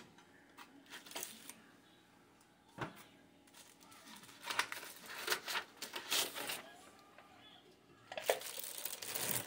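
Packing paper rustling and crinkling, with light knocks and clatter as a metal wire rack and a packing insert are lifted out of a multicooker's inner pot; a denser, louder rustle comes near the end.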